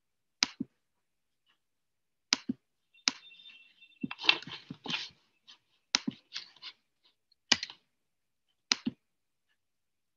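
Scattered sharp clicks and knocks, mostly in quick pairs with a denser cluster in the middle, picked up over an open video-call microphone.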